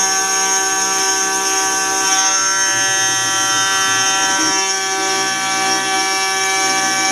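CNC milling spindle at 12,000 rpm driving a small end mill along the outline of an aluminium part. It makes a steady, loud, high whine built from many steady tones, with a bright band of cutting noise above it.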